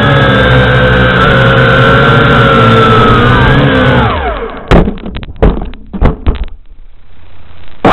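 Small radio-controlled drone's electric motors and propellers whining loudly and steadily, heard from on board. About three seconds in the pitch falls and the motors cut out; several sharp knocks follow as it comes down onto the ground. After a quieter stretch the motors start up again at the very end.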